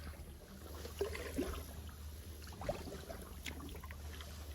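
Kayak paddle strokes in the water: the blade dipping with light splashes and drips.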